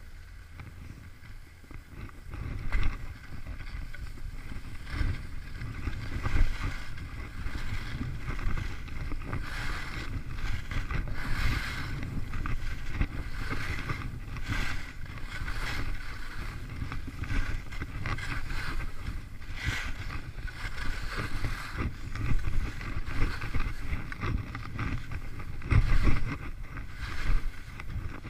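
Wind buffeting an action camera's microphone during a downhill ski run, mixed with skis scraping and hissing over packed snow in repeated swells as the skier turns; the rush grows louder a few seconds in as speed builds.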